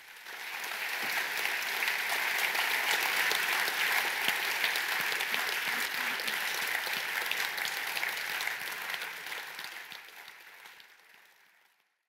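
Applause, many hands clapping, swelling up over the first couple of seconds and fading away near the end.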